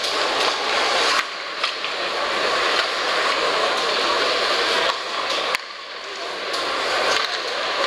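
Ice hockey arena crowd noise: a steady din of spectators, with a few sharp clicks of sticks and puck on the ice. The din drops suddenly about a second in and again near six seconds, then builds back up.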